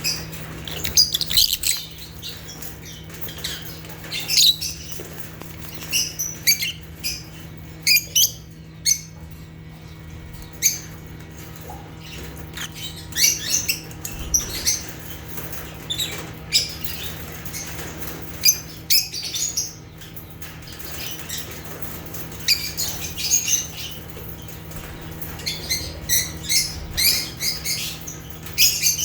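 Lovebirds chirping in short, high-pitched calls that come in irregular clusters, over a steady low hum.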